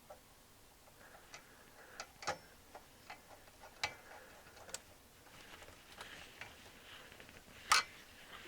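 Irregular clicks and clinks of parts and tools being handled while an amplifier module is refitted into a stereo receiver, with a brief rustle in the middle and the loudest, sharpest clack near the end.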